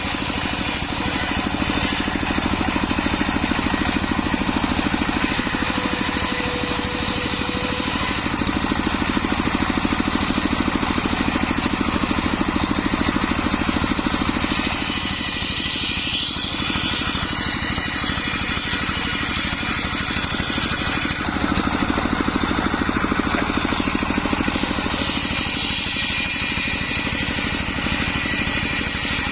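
Homemade engine-driven circular saw running steadily while ripping sengon wood, the blade's high hiss swelling and easing several times as cuts go in and come out.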